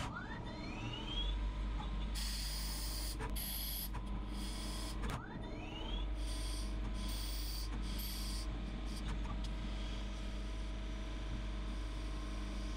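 CNC lathe turning brass bar stock over a steady machine hum. Twice the spindle whines upward in pitch as it speeds up, and two stretches of high cutting noise follow.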